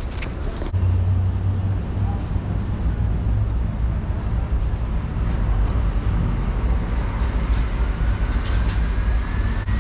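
A car in motion: steady low road and engine rumble, with a few clicks near the start and a faint tone rising in pitch toward the end.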